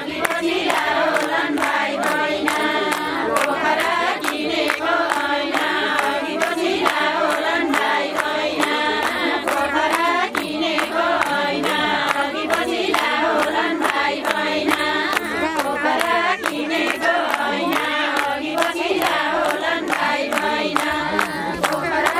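A group of women singing a Ratyauli folk song together, with steady rhythmic hand clapping at about two claps a second.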